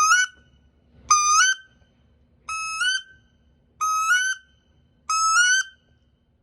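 Duck Commander Woody wood duck call blown in a string of five short toots, about one every 1.3 seconds, each note stepping up in pitch at its end.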